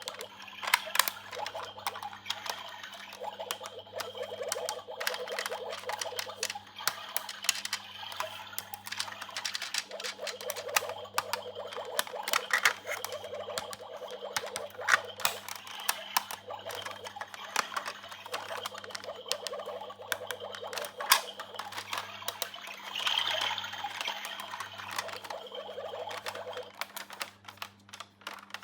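Small plastic toy pieces being handled and set down: a steady stream of light, irregular clicks and taps.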